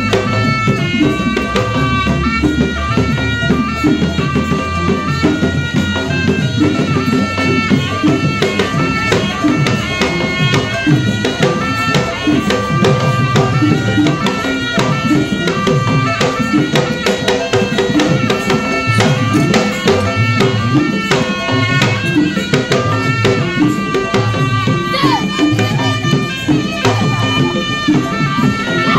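Traditional Malay silat accompaniment music: a melody of held notes stepping up and down over fast, steady drum beats.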